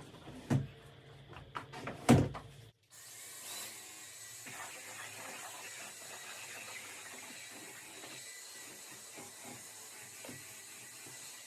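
A few knocks and bumps, then a vacuum cleaner running steadily with a faint high whine.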